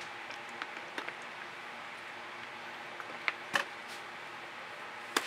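A few light clicks and taps from handling a paint bottle and spatula while paint is dripped onto a canvas, over a steady faint background hum. The two sharpest clicks come close together past the middle, and another comes near the end.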